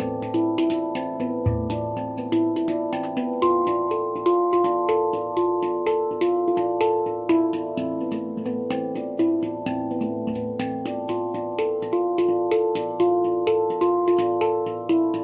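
BaoPan handpan in A2 played with the fingers in a quick, continuous stream of struck notes that ring on over one another. A deep low note is struck about a second and a half in.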